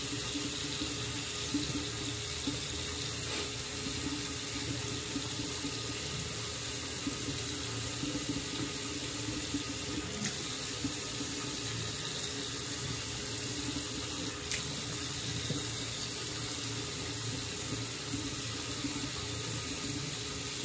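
Water running steadily from a sink tap.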